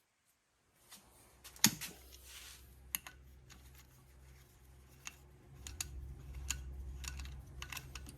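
Scattered metallic clicks and taps of hand tools and small parts being handled on a Cummins VE diesel injection pump, the sharpest about a second and a half in, over a low steady hum.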